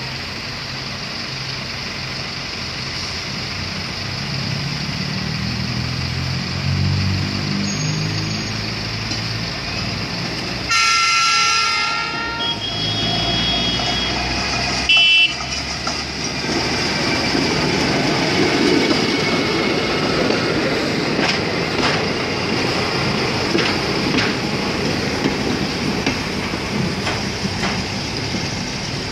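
Road-rail tractor's engine growing louder as it approaches on the track, towing a flatcar and a passenger coach. Near the middle a horn gives one blast of about a second, followed a few seconds later by a short beep. Then the steel wheels rumble and click over the rails as the train passes close by.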